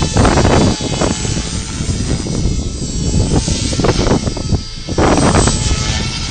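Align T-Rex Pro radio-controlled helicopter flying, its rotor and motor giving a steady whine, with strong gusting wind buffeting the microphone in surges.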